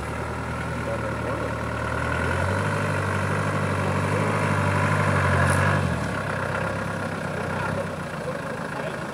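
Off-road vehicle's engine running at low speed. It picks up revs about two and a half seconds in and drops back to a lower speed just before six seconds.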